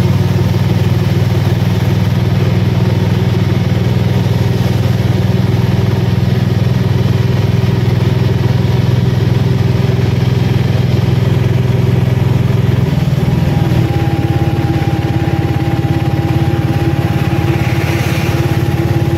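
Auto-rickshaw engine running steadily as the vehicle drives along the road. Its pitch drops slightly about two-thirds of the way through.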